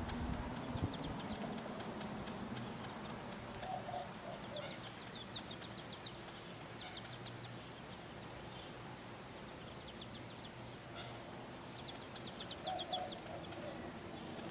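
Quail chicks peeping: high, thin notes in quick runs of short chirps, coming in several bursts.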